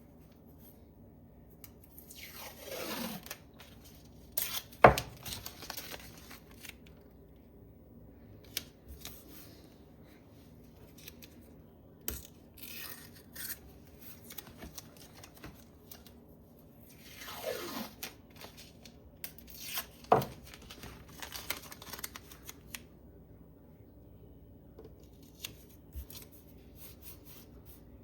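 Blue painter's tape pulled off the roll with a falling screech, then torn off with a sharp snap. This happens twice, with lighter crinkling and handling of the tape in between.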